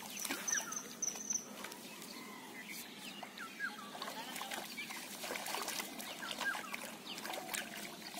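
Water splashing and dripping as a cast net is hauled through shallow pond water, with small fish flipping in the net. Birds chirp in the background.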